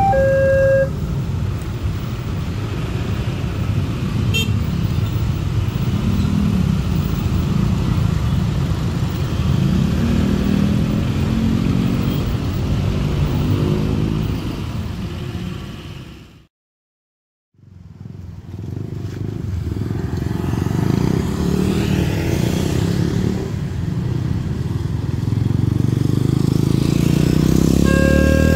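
A level-crossing electronic alarm stops about a second in, and motorcycles and cars then pass close by as traffic crosses the opened railway crossing, their engines rising and falling in pitch. After a second of silence midway there is more road traffic, and near the end a crossing alarm starts sounding its steady electronic tones again.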